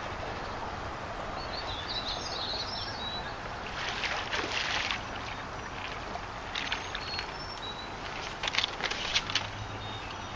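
Water splashing several times as a hooked sheepshead thrashes at the surface by the feet of a wading angler, the loudest splashes near the end. Faint high bird chirps about two seconds in.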